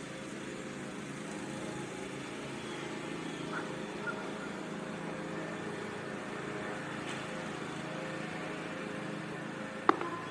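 Idling car engine, a steady low hum under an outdoor background, with a single sharp click near the end.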